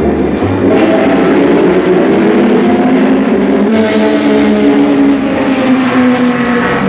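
Racing car engines running hard, their pitch sagging slowly and then jumping back up nearly four seconds in.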